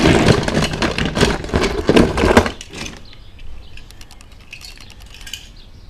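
Toy cars, die-cast and cheap plastic, clattering and rattling against each other as a hand rummages through a box of them. The clatter is loud for about the first two and a half seconds, then thins to scattered faint clicks.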